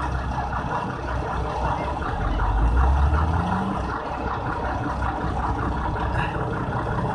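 Vehicle engine running with a steady low rumble, rising in pitch and getting a little louder a couple of seconds in, then settling back.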